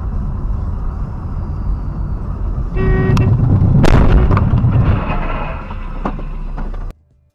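Dashcam audio of a car driving, a steady low rumble of engine and road noise; a short horn blast about three seconds in, then a loud crash about four seconds in as an SUV strikes the side of the car, with a second of crunching and scraping after the impact.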